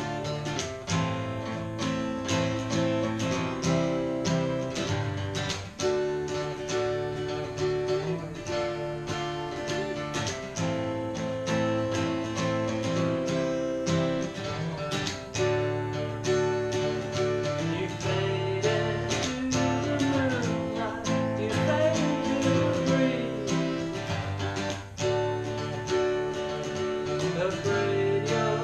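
Two acoustic guitars strummed together in a steady rhythm as a duet; a man's singing voice comes in about twenty seconds in.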